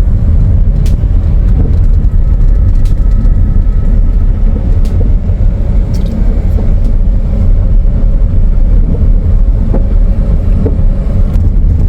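A car driving along the road: a steady low rumble of road and engine noise, with a few faint ticks now and then.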